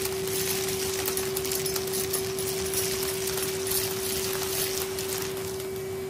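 Numatic Hetty HET 200A vacuum cleaner running with a steady whine, sucking up metal paper clips that clink and rattle as they are drawn up the metal wand.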